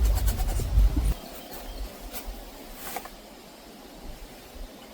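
Sugar being poured into the lemonade mix: a quick run of light ticks in the first second over a low rumble that stops suddenly about a second in, then a few faint clicks.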